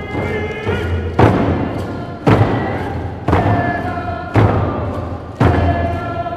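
Tlingit hand-held frame drums struck in a steady beat about once a second, with a group of voices singing a traditional Tlingit song over them.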